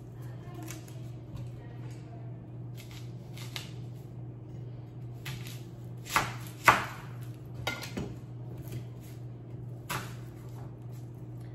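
Onion being peeled by hand with faint crackles of its papery skin, then a chef's knife cutting through it onto a wooden cutting board: two sharp knocks about six seconds in, half a second apart, and another near ten seconds. A steady low hum runs underneath.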